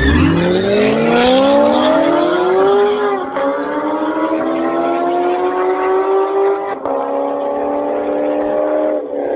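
Car launching hard down a drag strip, its engine revving higher through each gear. The pitch drops at a shift about three seconds in and again about seven seconds in, then climbs again after each.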